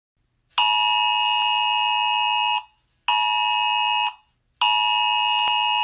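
Electronic danger alarm tone in three steady blasts, about two seconds, one second and two seconds long, each a chord of fixed high pitches that starts and stops sharply. It is the civil defence danger alarm, a warning to take shelter.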